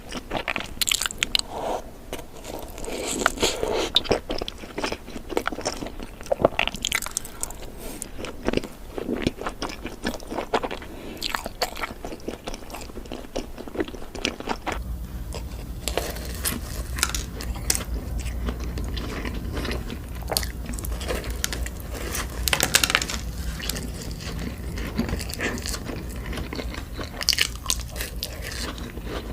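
Close-up eating sounds: biting into and chewing glazed donuts, with many short sharp clicks from the mouth. A steady low hum comes in about halfway through.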